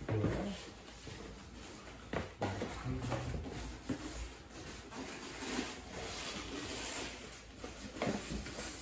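A cardboard box and its plastic-wrapped packaging being handled: irregular rustling, scraping and small knocks as the flaps are pulled back, with a sharper knock a little over two seconds in.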